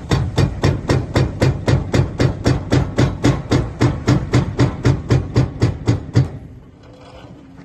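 Excavator-mounted hydraulic breaker hammering, a fast even run of heavy blows at about four to five a second that stops about six seconds in.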